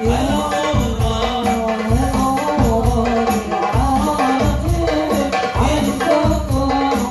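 Devotional Islamic music in the hadrah style: frame drums and tambourine jingles beat a steady rhythm, about two strokes a second, under a melody.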